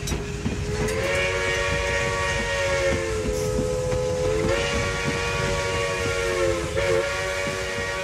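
A steam locomotive's chime whistle sounding one long, unbroken chord over a low rumble and hiss of steam. Its pitch steps up slightly about halfway through and wavers briefly near the end.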